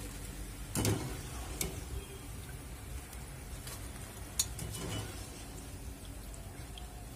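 Hot oil sizzling around potato sticks deep-frying in a saucepan, with a few sharp clicks of a fork and a wire skimmer against the pan.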